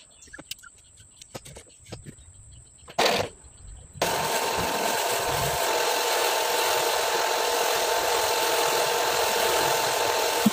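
Drill spinning a stone honing tool inside a cylinder liner of a Toyota 1KD engine block, the stones grinding the bore. A few light clicks come first, then a short burst about three seconds in, then a steady loud run with a whine from about four seconds in that stops at the end.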